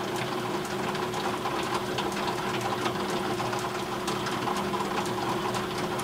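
Steady electrical or mechanical hum with a constant pitch, under scattered faint ticks as a craft knife cuts through a sheet of polymer clay on a tile.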